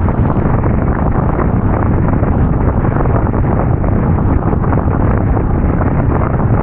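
Strong wind buffeting the microphone: a loud, steady rumbling roar with no let-up.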